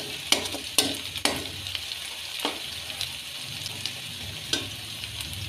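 Sliced onions and cumin seeds sizzling in hot oil in a metal pot, stirred with a metal spoon. The spoon knocks and scrapes against the pot several times in the first second or so, and once or twice more later, over a steady sizzle.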